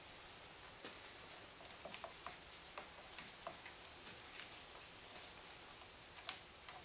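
Small plastic-handled brush scrubbing the aluminum ski attachment of a snowmobile ski, to clean off oxidation: faint, irregular scratchy strokes of bristles on metal.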